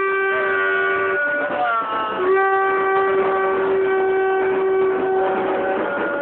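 Long held horn-like tones, several pitches sounding together, breaking off about a second in, then a short downward pitch slide before the held notes resume.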